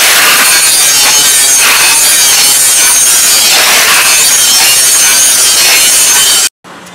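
Angle grinder with an abrasive cut-off disc cutting through steel: a loud, steady high-speed grinding screech that cuts off abruptly near the end.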